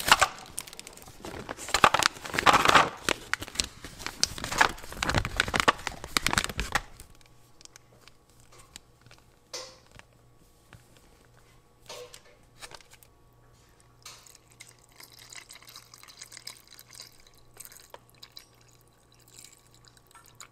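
Plastic food packets crinkling and rustling as rice cakes and noodles are emptied into a paper instant-topokki bowl, for about the first seven seconds. Then it goes much quieter, with a few soft drips and taps as thick sauce is squeezed from a packet into the bowl over a faint steady hum.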